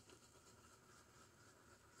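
Near silence: room tone with faint rubbing of a wet cloth against a bearded face.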